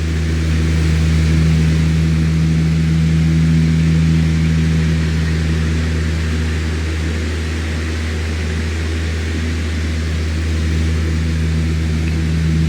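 Electric fan running steadily: a low motor hum with a few steady tones under an even rush of air.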